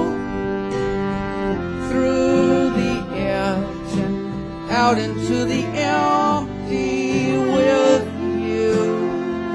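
Acoustic string band playing an instrumental break between sung verses: a bowed fiddle carries the melody with sliding, wavering notes over guitar and bass.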